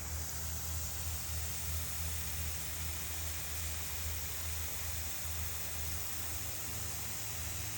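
Steady hiss with a low hum underneath, with no distinct events.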